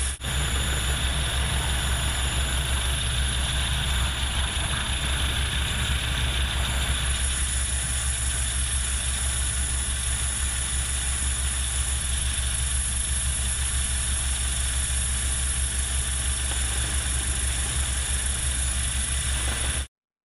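Steady turbine and rotor noise of a US Coast Guard MH-65 Dolphin helicopter in a hover, heard from inside the cabin with the side door open, with a deep hum and a broad rushing hiss. It cuts off abruptly near the end.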